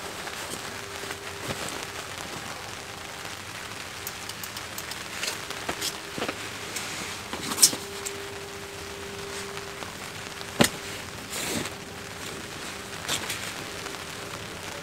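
Rain falling on the tarp and tent fly: a steady hiss with scattered sharp taps, the loudest about halfway through and another about three seconds later.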